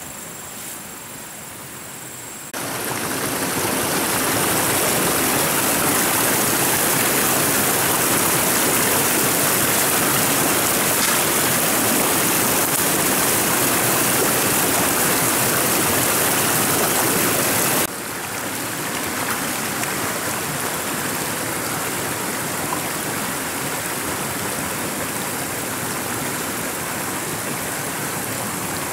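Mountain stream rushing over rocks, a steady loud noise of running water. It comes in suddenly a couple of seconds in, after a quieter start, and drops a little but carries on about eighteen seconds in.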